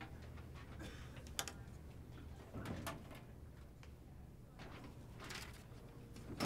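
Low, steady office room hum with desk-work handling sounds: a metal desk drawer slid open and rummaged in, papers rustling, and one sharp knock near the end.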